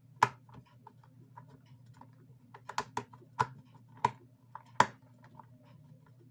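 Small screwdriver driving screws into a plastic Bluetooth-speaker housing: a string of sharp, irregular clicks and taps as the tip seats and turns in the screw heads.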